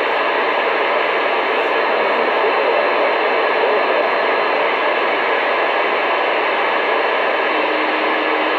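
Radio receiver hissing with steady static on an open channel while no one transmits; the needle of its signal meter rests near the bottom of the scale. A faint low tone joins the hiss near the end.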